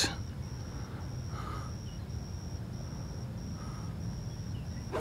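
Insects chirping in a steady, pulsed high tone, about two chirps a second, over a low background hum. At the very end comes the sharp click of an 8-iron striking a golf ball.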